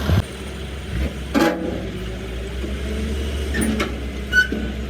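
An engine running steadily with a low hum, with a few short knocks and clicks over it, the loudest about a second and a half in.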